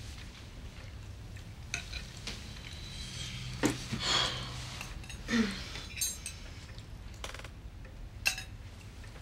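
Cutlery clinking and scraping against china plates during a meal, a handful of separate light clinks over a quiet room hum.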